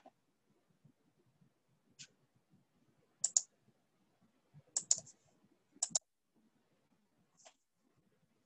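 Computer mouse clicking: about eight sharp clicks, most of them in quick pairs.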